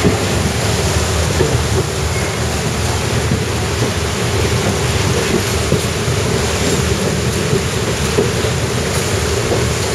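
Train running over flooded, submerged tracks: a steady rush of churning water with a low rumble underneath.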